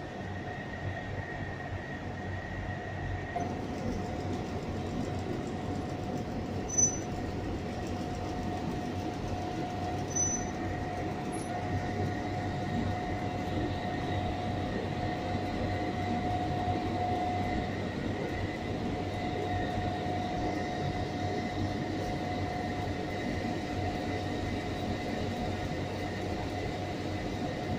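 Steady mechanical drone with a low rumble and several held tones, with two brief high-pitched blips about seven and ten seconds in.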